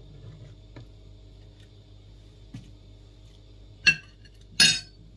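Steady low kitchen hum with a few faint ticks, then two sharp metallic clinks of a utensil against the cooking pot near the end, the second one longer.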